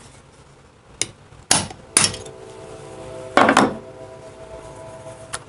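Hammer striking a pin punch to drive old brass rivets out of a steel Harley-Davidson Panhead clutch hub: four sharp metallic blows about half a second to a second and a half apart. After the third blow the hub rings with a clear, lasting metallic tone for about three seconds.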